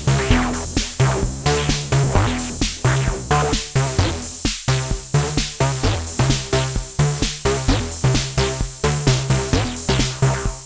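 Erica Synths Bassline analog bass synthesizer playing a sequenced electronic bass pattern of short, sharply struck notes at about four a second, stepping between pitches. There is a brief break in the bass about four and a half seconds in.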